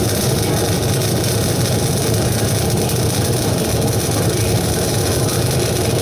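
Welding arc hissing and crackling steadily over a low machine hum.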